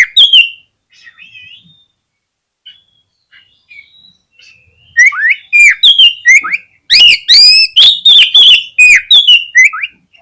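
Oriental magpie-robin (kacer) song: a couple of loud notes at the start, soft twittering, then from about five seconds a loud, fast run of whistled notes sweeping up and down, mixed with sharp clicks.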